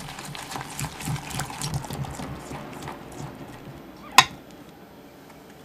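A spiral whisk beating a creamy cheesecake mixture with sugar in a glass measuring jug: quick, wet stirring strokes for about three seconds that then ease off, followed by one sharp click of the whisk against the glass just past four seconds.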